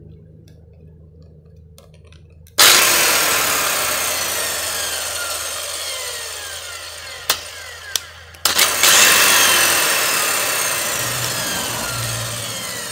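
A 100-volt Japanese-domestic circular saw with a 160 mm wood-cutting blade is switched on and runs. It starts suddenly about two and a half seconds in and slowly falls in level. The trigger is blipped twice near eight seconds, then the saw runs again to the end.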